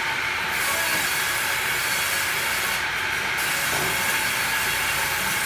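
Wood-cutting machine running, a steady hissing noise with no break.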